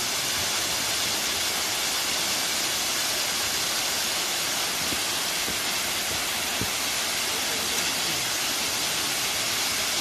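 Waterfall: water pouring down a rock face in a steady, even rushing hiss.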